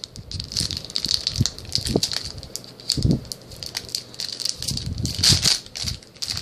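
Foil trading-card booster pack crinkling and crackling as it is handled and opened, a run of irregular crackles with the loudest a little past five seconds in.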